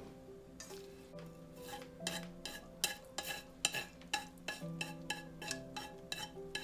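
A utensil stirring in an aluminium mess tin, knocking and clinking against the tin about three times a second, over background music.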